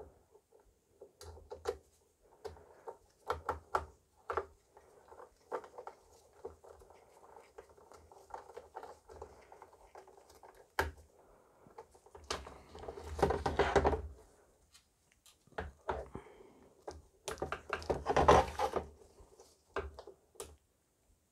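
Hands and a screwdriver working on a 3D printer's metal-cased power supply: scattered small clicks and knocks of the tool, screws and parts. About halfway through, and again a few seconds later, come louder spells of handling noise, each about two seconds long.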